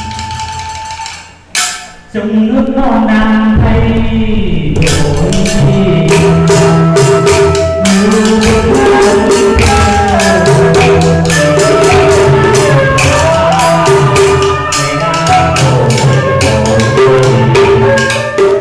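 Vietnamese chèo folk music: a bamboo flute holds a note, breaks off about a second and a half in, and the ensemble comes in, with a small chèo drum and wooden clappers tapping a quick, busy beat under the melody and a man's singing.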